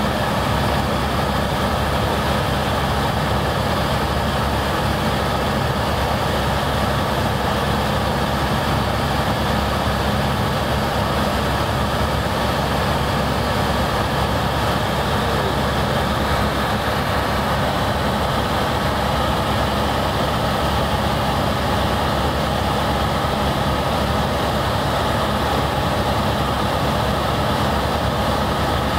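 Helicopter turbine and rotor noise heard from aboard in flight: a loud, steady drone with a low hum underneath that does not change.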